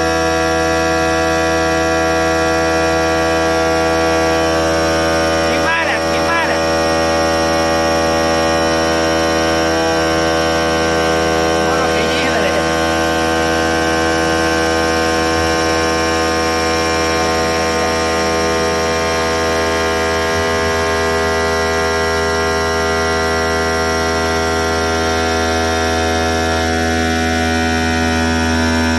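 CNC countertop machine running, its spindle and water-cooled cutter working around the edge of a round sink cutout in the slab. A steady hum made of many steady tones, even in level throughout.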